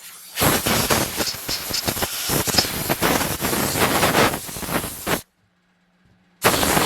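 Compressed air from a compressor's blow nozzle blasting dirt off a chainsaw, a loud, uneven hiss. It stops for about a second and then starts again near the end.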